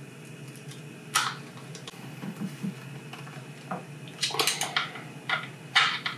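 Small hard plastic clicks and taps as the clip is fitted back onto a Trumpf surgical table hand control and a small screwdriver works its two screws. There is one sharp click about a second in, then a run of quick clicks in the second half.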